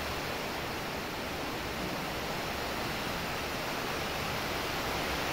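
Steady hiss of rain falling, an even noise with no distinct events.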